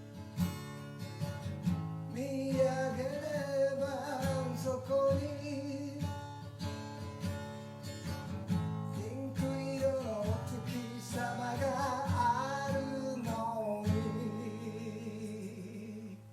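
Acoustic guitar strummed in chords, with a voice singing a Japanese song over it from about two seconds in. The singing stops about two seconds before the end while the guitar keeps playing.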